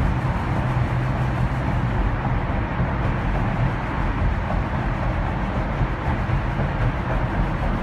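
Steady road and engine noise of a car driving through a tunnel, heard from inside the cabin, with a low hum underneath.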